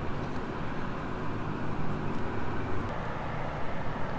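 Steady mechanical hum of a rooftop HVAC unit running, an even rushing noise with a faint held tone under it.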